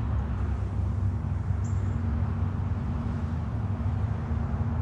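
Steady low mechanical hum with several constant low pitches, even in level throughout, with one brief faint high chirp about one and a half seconds in.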